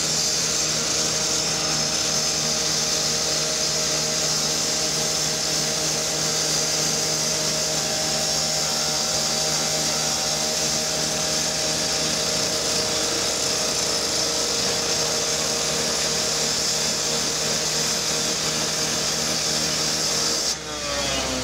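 A power saw with a cutting disc running steadily as it cuts into the steel body of a garbage truck, throwing sparks, with a high, steady whine. It stops suddenly near the end.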